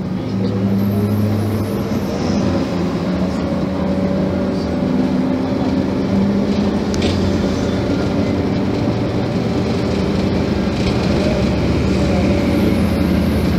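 Scania K270IB bus's five-cylinder diesel engine running under load while the bus drives, heard from inside the cabin. Its pitch climbs slowly as the bus gathers speed.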